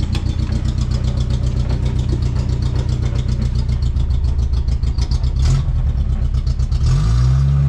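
Datsun 120Y (B210) four-cylinder engine running steadily, freshly fitted with a new fan belt and refilled with coolant, and running well. It is blipped briefly about five and a half seconds in, then revs up and holds higher near the end.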